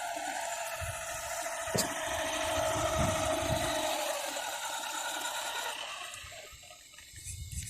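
Brushless electric motor of a radio-controlled Maverick Strada XT Evo car whining steadily as the car drives, its pitch sinking slightly before it fades out near the end.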